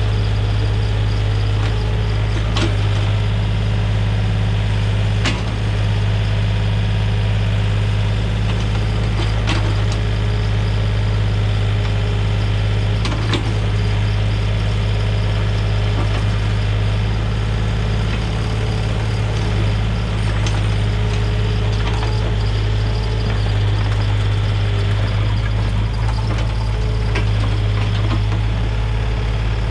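Komatsu mini excavator's diesel engine running steadily at working speed, with a handful of sharp knocks and clanks from the machine at work.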